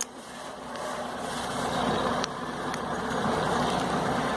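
An engine running steadily, growing louder over the first second and then holding even.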